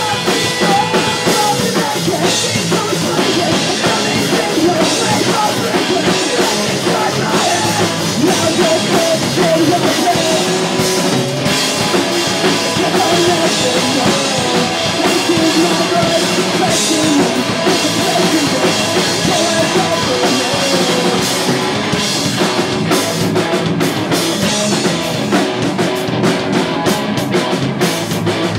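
Pop-punk band playing live: a drum kit and electric guitars playing together steadily and loudly, with a pitched melodic line wavering over them.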